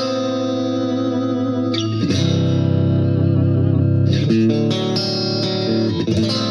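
Electric guitar played through a LEKATO R COMP compressor pedal: chords struck and left to ring, a new chord about every two seconds. The compression evens out the sustain and brings out the attack of the pick.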